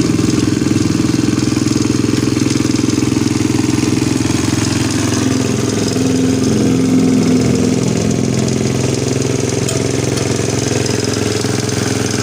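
Motorcycle engine idling steadily after being rebuilt, run so its sound can be checked. The engine's note shifts slightly with a small swell in loudness in the middle, then settles back.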